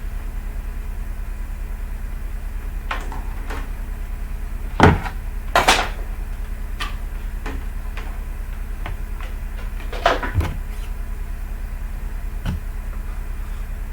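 Scattered knocks and clicks from a laptop being handled during partial disassembly. The loudest come about five seconds in and again about ten seconds in, over a steady low electrical hum.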